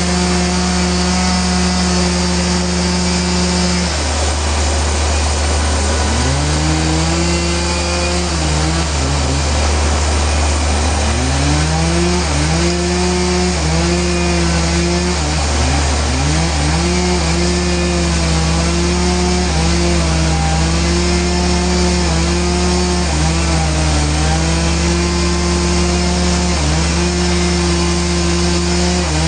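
Sawmill saw cutting through a large Trembesi (rain tree) hardwood log, with its motor running loud and steady. About four seconds in, its pitch sags sharply as the blade loads up in the cut. It recovers, then keeps dipping and climbing back as the cut goes on.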